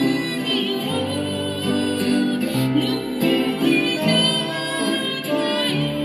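Upright piano playing a melody over chords.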